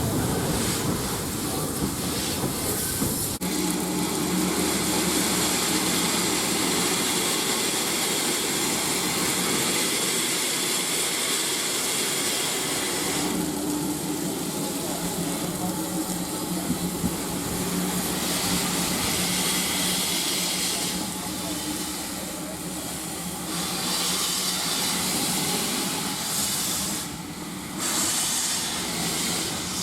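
Steam locomotive hissing steam steadily, the hiss easing and swelling a few times, over a low steady hum.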